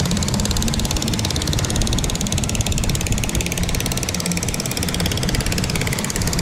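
A river ferry's engine running steadily while the boat is under way, a fast, even mechanical pulse over a constant rush.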